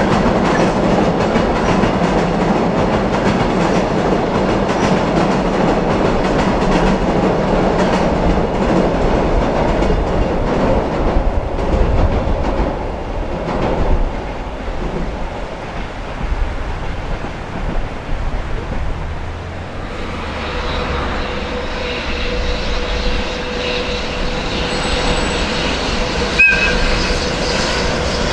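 Container freight train rolling over a steel girder bridge, wheels clattering over the rail joints, fading as the last wagons pass. A JR Freight EH500 electric locomotive then approaches with a steady tone, and near the end gives a very brief blast of its AW-2 whistle horn.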